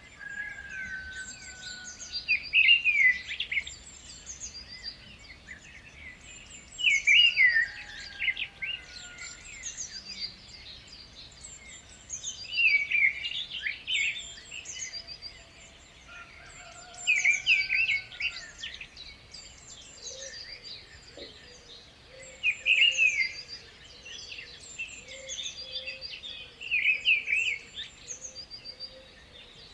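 Several birds singing. One loud song phrase is repeated about every five seconds, with other birds chirping higher and more steadily in the background.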